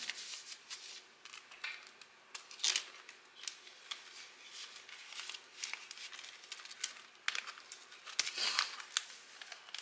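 Paper dollar bills rustling and crinkling as they are handled and counted by hand and slipped into a clear plastic binder envelope, with scattered short crackles, a few louder ones about a third of the way in and near the end.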